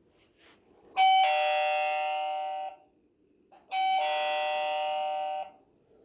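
Electronic doorbell chime of a smart door lock, rung twice: each ring is a two-note chime that lasts a little under two seconds and fades away, the first about a second in and the second just under four seconds in.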